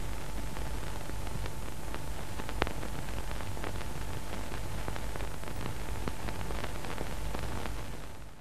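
Steady hiss and crackle of an old analogue film soundtrack with no speech or music, with a low hum beneath and scattered faint clicks, one louder about two and a half seconds in. It fades out at the very end.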